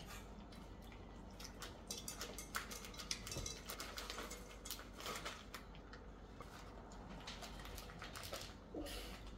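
A plastic bag crinkling and a scatter of light clicks as chocolate chips are poured into a glass stand-mixer bowl, busiest in the middle.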